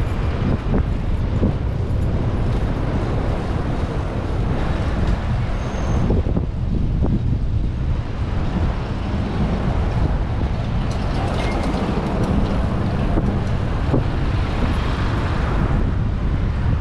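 Wind rushing over the camera microphone while riding a bicycle through city traffic, with vehicle traffic noise underneath.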